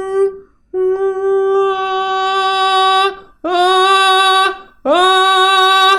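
A male singer sustaining a high note on a vowel in a light mixed voice, as a vocal demonstration: a long held note, then two shorter notes that each slide up into the same pitch.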